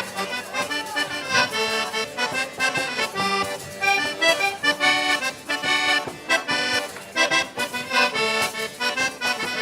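Instrumental break in a southern Italian strina folk song: an accordion playing rhythmic chords at a lively dance tempo.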